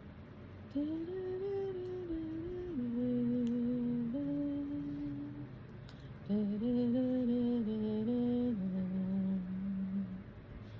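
A woman humming a slow, wordless tune in two phrases of held notes that step up and down, with a short pause about halfway through.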